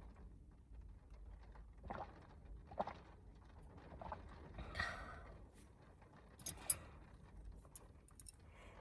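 Quiet eating sounds: light taps and clicks of utensils against a dish, with a short breathy sound, like blowing on or sipping hot oden, about halfway through.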